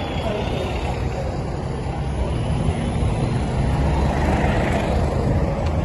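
Double-decker buses driving past at close range: a steady low engine rumble, swelling about four seconds in as a red double-decker goes by.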